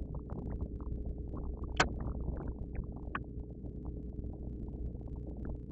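Small clicks and taps of fingers handling a laptop's flat ribbon connector and tape, over a steady low hum. The sharpest click comes a little under two seconds in, and a fainter one about three seconds in.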